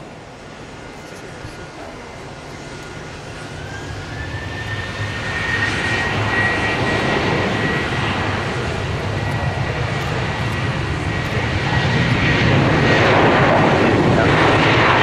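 Boeing 737-800's CFM56 jet engines running up for departure. A fan whine rises in pitch about four seconds in, then holds steady, while the engine noise grows steadily louder and is heaviest near the end.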